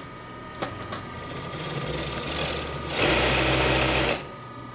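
Chimaco 363-211 chain-stitch industrial sewing machine stitching denim: a couple of sharp clicks near the start, then it picks up about two seconds in and sews at full speed for about a second before stopping abruptly. A faint steady hum runs underneath.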